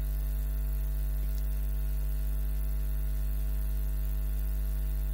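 Steady electrical mains hum with a faint hiss: a constant low buzz with evenly spaced overtones, unchanging throughout.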